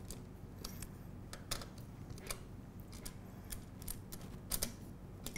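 Light metallic clicks and taps as a hand screwdriver turns a screw to snug a bracket against an aluminium channel, the loudest taps about one and a half, two and a half and four and a half seconds in.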